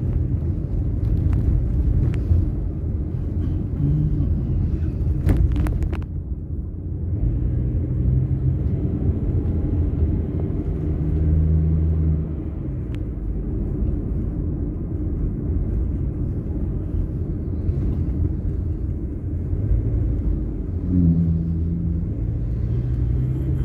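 Car engine and road rumble heard from inside the cabin while driving, a steady low drone whose engine note shifts a few times with speed. A few sharp clicks sound around five seconds in.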